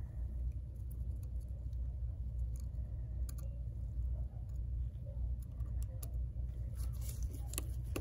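Faint scattered ticks and light taps of a plastic spudger and gloved fingers pressing flex-cable connectors into place on an opened smartphone, growing more frequent near the end, over a steady low hum.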